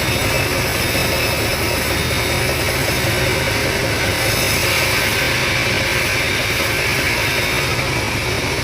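Sawmill machinery running steadily: a constant engine-like hum under a loud, even mechanical noise, with no break or change.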